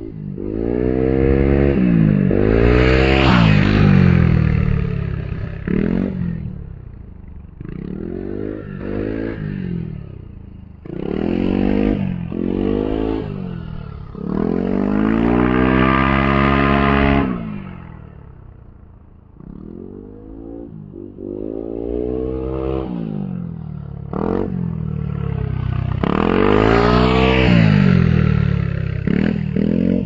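Aprilia SR GT 125 scooter's single-cylinder four-stroke engine, running through an aftermarket carbon slip-on exhaust with the dB killer fitted, accelerating and passing by again and again. The pitch rises and falls with each pass, loudest about three seconds in, around the middle and near the end.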